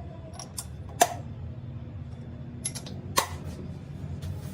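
Sharp metallic clinks and taps, about four in all, the loudest about a second in, each with a short ring, over a steady low hum.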